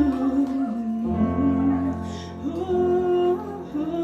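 Live slow ballad music: a female voice holding long wordless notes that move slowly in pitch over sustained instrumental accompaniment.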